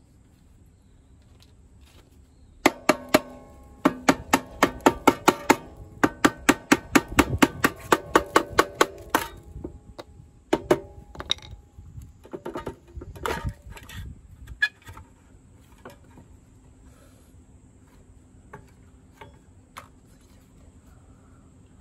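Ratchet wrench clicking in quick runs of ringing metal clicks, about five to seven a second, as the bolts of a Suzuki Address V125G scooter's rear gear case cover are loosened. It is followed by a few scattered knocks and clunks of metal.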